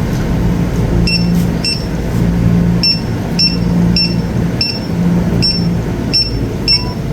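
Checkout barcode scanner beeping as items are scanned: about ten short, high-pitched beeps at one pitch, roughly two a second.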